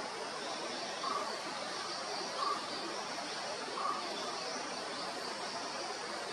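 Steady forest background of insects droning, with three short bird calls about a second and a half apart.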